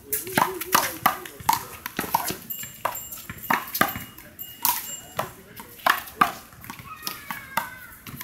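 Sharp, rapid slaps of small rubber handballs being struck by gloved hands and hitting the wall, repeating every fraction of a second.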